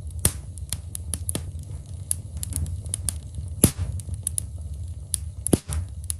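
Open log fire in a fireplace crackling: irregular sharp pops and snaps of burning wood, a few louder than the rest, over a steady low rumble.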